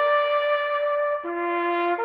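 Solo trumpet playing a slow bugle-call-style tune. A high held note gives way about a second in to a low note, then a step up again: the same rising three-note figure repeats.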